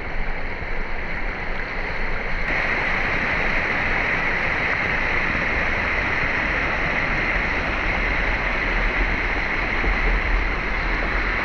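Clear river water rushing over rocks in small rapids and cascades, a steady, loud rush. About two and a half seconds in it changes abruptly, becoming brighter and stronger.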